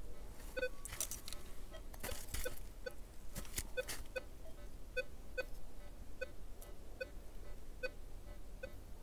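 Metal detector beeping in short, even tones about two to three times a second as its coil is swept back and forth over a small gold ring buried about 20 cm down. There is some rustling in the first few seconds.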